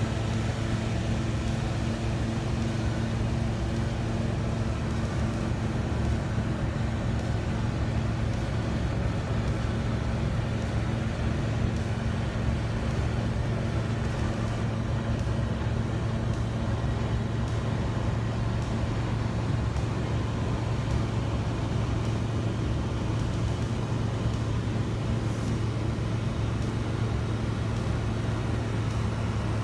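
Light aircraft engine running steadily in cruise flight: a constant drone with a rushing noise under it, and no change in pitch.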